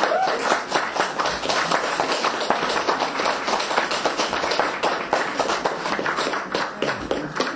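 An audience applauding, many hands clapping at once, dense and sustained.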